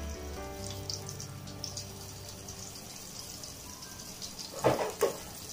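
Floured tilapia fillet frying in hot oil in a pan, with a light sizzle and crackle, over background music. Two sharp knocks near the end.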